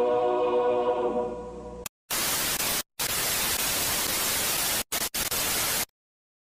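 Music fades out, then loud off-air white-noise static hisses for about four seconds, broken by brief dropouts, and cuts off abruptly to dead silence. It is the sound of a station going off the air at sign-off.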